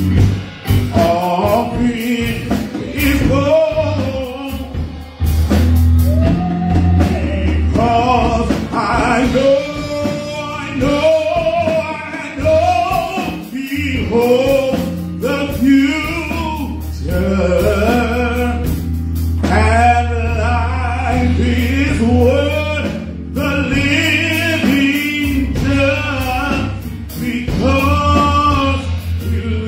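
Gospel music: a man singing over electronic keyboard and a drum kit.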